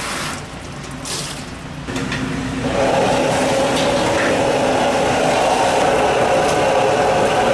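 Water running hard from a tap, turned on about two and a half seconds in after a few brief splashing noises, during the cleaning of fish.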